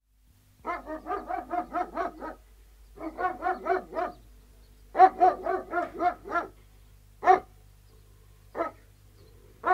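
Three Alsatian guard dogs barking in rapid volleys of several barks a second, three bursts with short pauses between them, then two single barks near the end.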